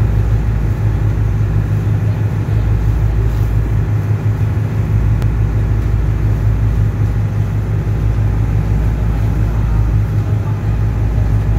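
Ferry's engines droning steadily as the boat cruises, heard from inside the cabin: a constant low hum and rumble with an even wash of noise over it.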